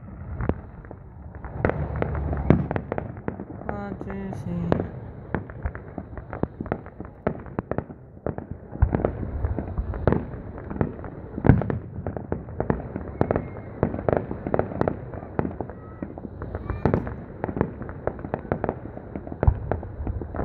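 Fireworks going off all around: a continuous, irregular string of bangs, pops and crackles, several a second, over a low rumble of distant booms, with the loudest bangs about halfway through.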